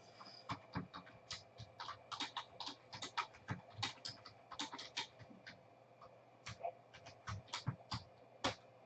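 Faint keystrokes on a computer keyboard, irregular clicks a few times a second, with a low steady hum behind.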